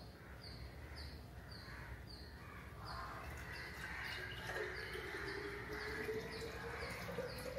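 Lime-ginger syrup poured from a steel pan through a plastic funnel into a glass bottle: a faint trickle and splash starts about three seconds in, with a low tone that rises slightly as the bottle fills. A short, high chirp repeats about twice a second throughout.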